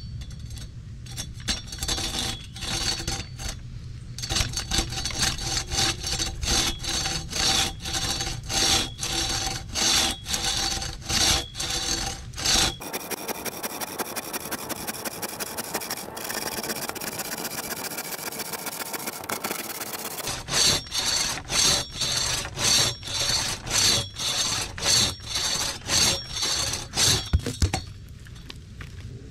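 Cut-down two-man crosscut saw cutting through a log in quick push-pull strokes, about two a second, its steel teeth rasping in the wood. The stroke rhythm breaks off for several seconds in the middle, then resumes, and stops near the end.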